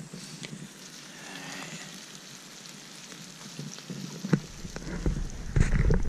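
Mushrooms and onions sizzling as they fry in butter in a pan over a campfire, with a fine, even crackle. From about four seconds in, a low rumble on the microphone builds beneath it.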